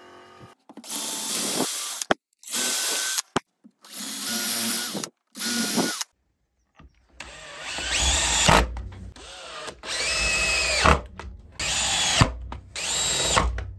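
Power drill running in short bursts. In the first half it drills holes through a jigsaw's steel base plate into a wooden block. In the second half it drives screws into the block, in four longer runs with a whine that rises as each run starts.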